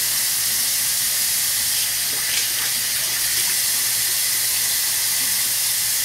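Bathroom sink tap running steadily while hands take water to rinse shaving lather off the face, with a few small splashes about two seconds in.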